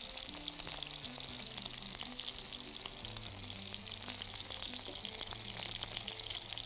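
Chicken skin frying in its own fat in a pan: a steady sizzle with scattered small crackles as the skin crisps. Soft background music plays underneath.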